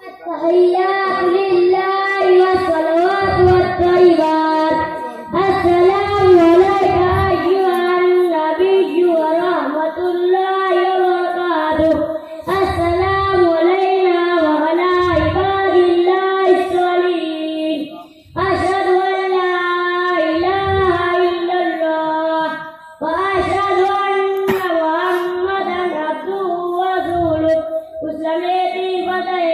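A boy singing a melodic verse solo, in long held phrases with short breaks every five or six seconds.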